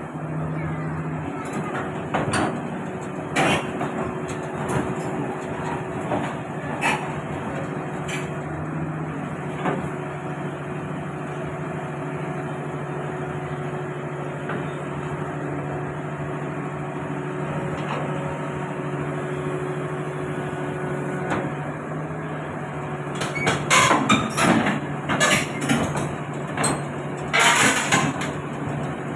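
Heavy diesel machinery running steadily, with a few sharp metal knocks early on and a run of loud metal clanking and banging in the last several seconds.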